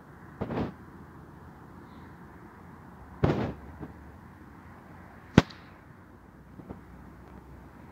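A few sudden bangs about two to three seconds apart: two short rough bursts and then a single very sharp crack, the loudest, followed by a faint pop near the end.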